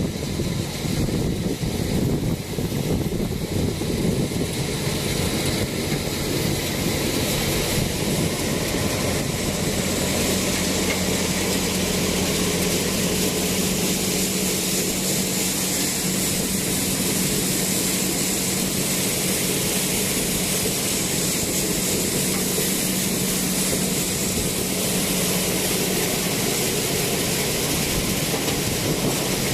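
Tractor-driven chickpea thresher running, a steady loud mechanical din of engine and threshing drum. A steady low hum settles in about a third of the way through.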